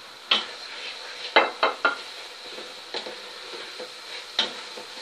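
Wooden spoon stirring and knocking against a large pot while onions, ginger-garlic paste and ground spices sizzle in hot oil. Sharp knocks come at uneven intervals, three in quick succession about a second and a half in.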